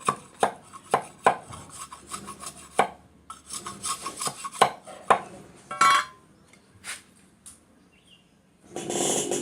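Bamboo being cut with a blade: a run of sharp strokes about twice a second, then scattered scraping and knocks. Music comes in near the end.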